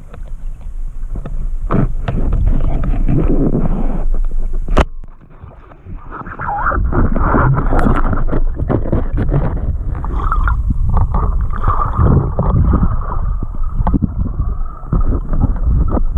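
Water sloshing and bubbling, with irregular knocks and gurgles, as heard by a camera in or at the water. A sharp click about five seconds in is followed by a brief quieter stretch before the water noise returns.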